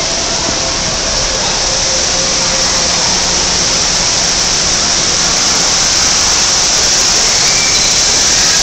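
Steady, loud hissing rush of running water in an indoor water-park hall.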